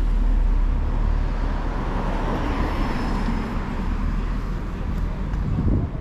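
Road traffic noise: a motor vehicle passing close by, its low engine and tyre rumble loudest at the start and slowly fading under steady street noise.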